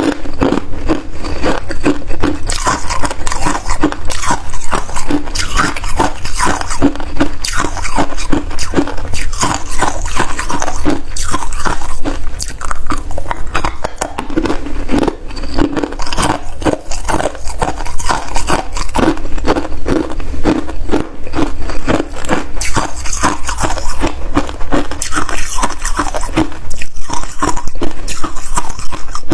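A person biting and chewing freezer frost: a steady, fast run of crisp crunches.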